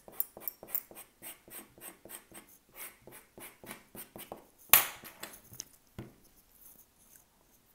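Sticky plastic film being peeled off a cracked iPhone 13 back glass: a run of short crackling rips about four a second, with one louder rip about five seconds in.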